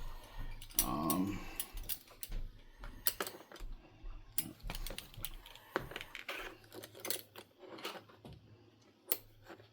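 Leather belts with metal buckles being handled: scattered light clicks, taps and rustles at an uneven pace.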